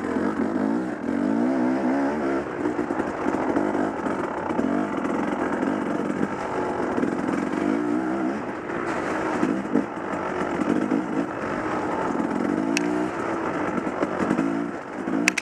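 Dirt bike engine running under changing throttle, its pitch rising and falling again and again as the rider accelerates and backs off along the trail, heard from the rider's helmet. A couple of sharp clicks come near the end.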